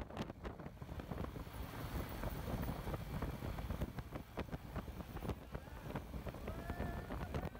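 Wind buffeting the microphone on a moving Honda motorcycle, over a low rumble of engine and road. The gusts come and go unevenly.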